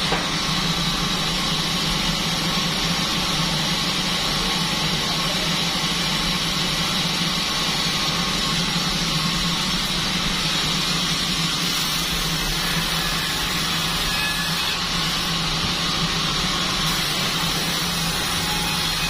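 Band sawmill running steadily, a continuous even machine noise with no breaks or changes in pitch.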